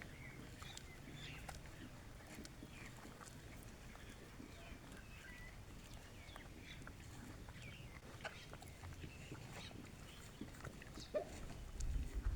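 Desi chickens calling: many short, faint calls scattered throughout, with a louder low rumble near the end.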